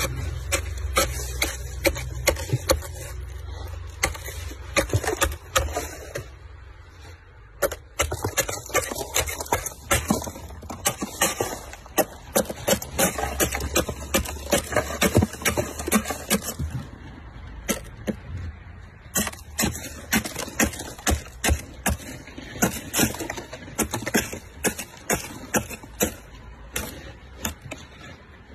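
Scraper crunching through thick frost built up on a freezer's walls: runs of quick, rough scraping strokes, easing off briefly about seven seconds in and again near eighteen seconds.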